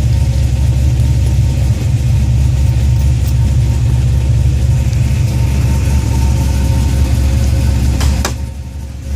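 2004 Cadillac CTS-V's LS6 V8 idling with a steady low exhaust rumble. Near the end a click is heard and the rumble briefly drops quieter.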